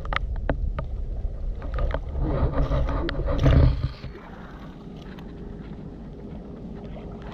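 Heavy low rumble on the microphone with scattered sharp clicks of stones and shards being handled on the foreshore, dropping suddenly about four seconds in to a steady, quieter hiss.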